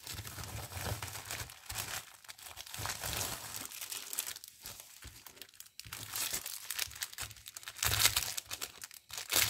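Packaging crinkling and rustling as it is handled and opened, an irregular crackling that is loudest near the end.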